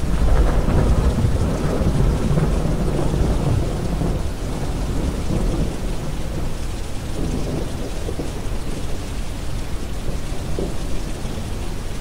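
Rolling thunder breaks in suddenly, loudest for the first few seconds, then rumbles on more softly. Steady rain and a deep brown-noise bed continue underneath.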